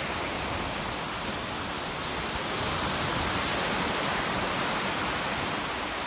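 Sea surf breaking and washing onto a sandy beach: a steady rushing noise that swells a little midway.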